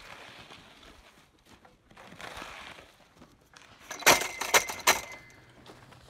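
Quiet outdoor hush, then about four seconds in a quick cluster of sharp clinks and knocks, five or six in about a second.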